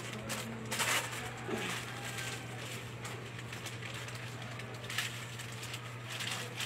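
Packets of store goods being handled, with a few brief rustles about a second in and again near the end, over a steady low hum.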